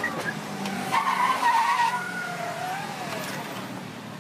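Car tyres squealing as a car pulls away on asphalt, a loud wavering squeal about a second in, then a lower, gliding squeal, over the low running of the engine.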